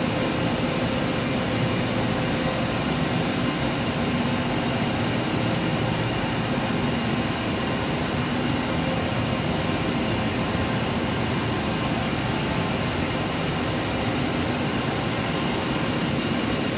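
Textile spinning-mill machinery running steadily, a Trützschler TD 10 draw frame among it. An even, unchanging drone with several constant whining tones on top.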